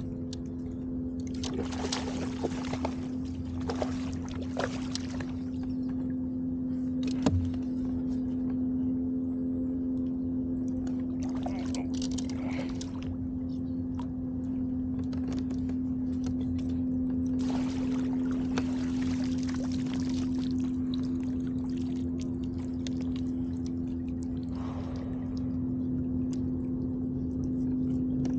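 A steady motor hum, with intermittent stretches of rushing, splashy noise and a single sharp knock about seven seconds in, heard from a fishing kayak while a hooked fish is played on rod and reel.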